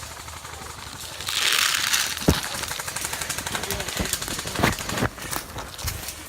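Airsoft guns firing: a sharp crack followed by a rapid run of clicking shots, with a few louder cracks among them.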